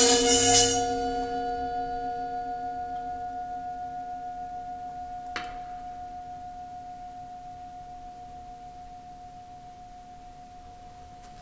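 Resonator of a Cristal euphonic instrument ringing on after being scraped: the bright scraping noise stops about a second in, leaving a single pure ringing tone with a few fainter overtones that fades slowly away. A short sharp tick about five seconds in.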